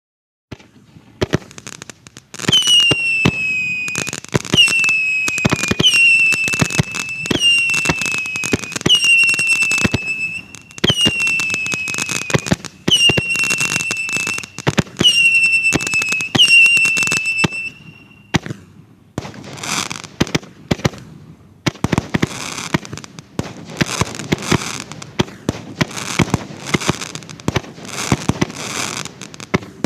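Nico 5707 'Ghost Bats' firework cake firing shot after shot with crackle effects; in the first half nine whistling shots each give a whistle that falls slightly in pitch and lasts about a second and a half. From about two-thirds through the whistles stop and dense crackling bursts take over, still punctuated by shots.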